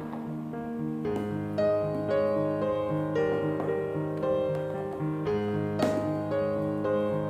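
Instrumental background music with a piano melody.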